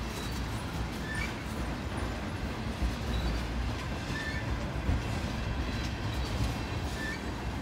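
Freight train tank cars rolling past: a steady low rumble of steel wheels on rail, with light clicks and several short, high wheel squeaks.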